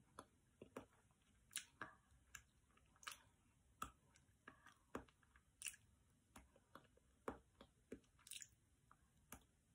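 Faint, irregular wet mouth clicks and lip smacks from exaggerated chewing of imaginary sticky toffee, a face and mouth warm-up, about two a second.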